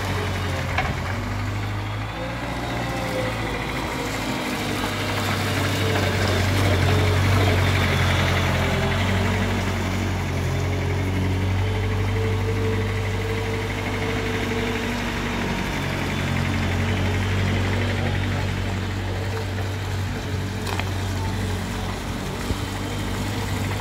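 Thaler KL 461/A mini loader's engine running steadily as the loader drives around, getting a little louder about six to eight seconds in.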